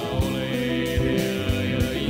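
Background music: a song with held chords and a steady beat.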